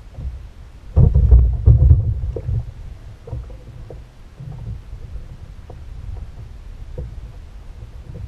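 Dull thumps and knocks on a fishing kayak's hull as gear is handled aboard, heaviest about one to two and a half seconds in, then lighter scattered knocks over a low rumble.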